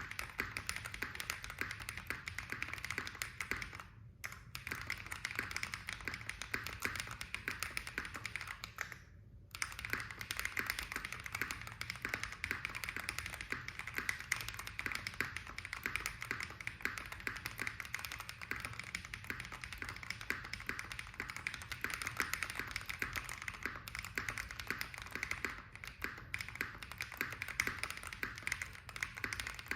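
Fast, continuous typing on a custom mechanical keyboard with a Tofu65 acrylic case, brass plate, and Holy Panda tactile switches lubed with Krytox 205g0, several keystrokes a second. The typing pauses briefly about four seconds in and for about a second around nine seconds in.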